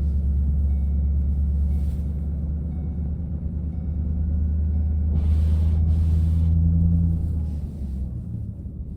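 Ford Mustang (S197) engine running steadily while driving in snow. About five seconds in the engine and a hiss of road or tyre noise swell louder, then ease off about two seconds later.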